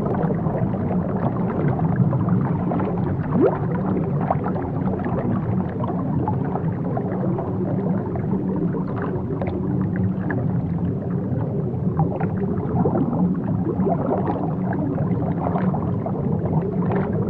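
Sea water heard from below the surface: a steady, muffled low rumble of churning water with faint gurgles and occasional faint squeaks.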